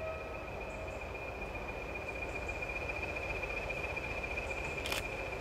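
The last of a diesel locomotive's horn note fading out in the first half second, then a steady low rumble with a thin, steady high-pitched whine and one sharp click near the end.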